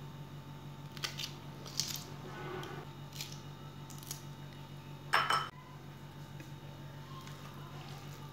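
Kitchen knife cutting small green chillies held in the hand, pieces dropping into a bowl: a few short, crisp snips, with one louder, longer crunch about five seconds in.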